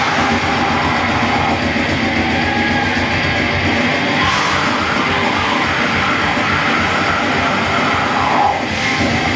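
A heavy metal band playing live at full volume: two distorted electric guitars, bass guitar and a drum kit, with vocals from a singing guitarist.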